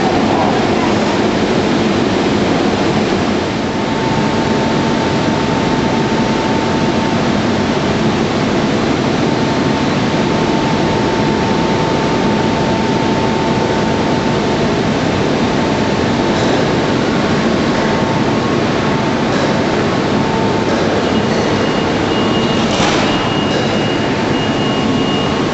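Steady industrial machinery noise from a door-panel press line, with a faint steady whine through much of it and a couple of sharp knocks near the end.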